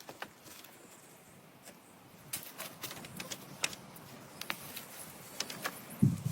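Irregular light clicks and taps, several a second, starting about two seconds in; a louder low rumbling sound begins at the very end.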